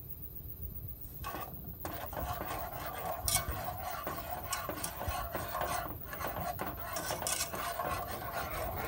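A utensil stirring and scraping food around in a pan, with frequent small clicks of the utensil against the pan. It starts about a second in.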